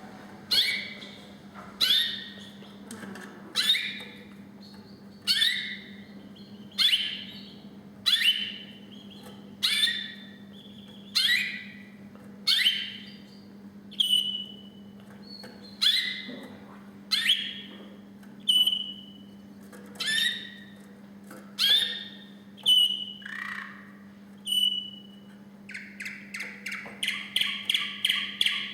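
Song canary singing: separate phrases about every second and a half, each a sharp note that falls in pitch. From about halfway, short clear whistled notes come between the phrases, and near the end the bird breaks into a fast trill of about six or seven notes a second.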